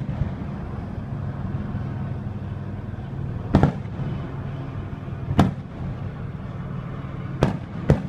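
Aerial firework shells bursting overhead: four sharp booms, the first two about two seconds apart and the last two close together near the end, over a steady low hum.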